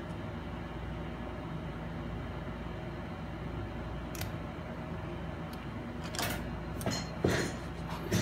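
Small precision screwdriver clicking and tapping against a laptop's open case and the workbench: a couple of faint clicks, then several louder taps and scrapes in the last two seconds, over a steady room hum.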